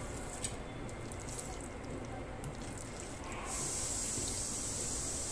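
Red silicone spatula stirring paneer cubes into thick gravy in a steel kadhai, soft and low, with a few faint ticks. A steady hiss comes in about three and a half seconds in.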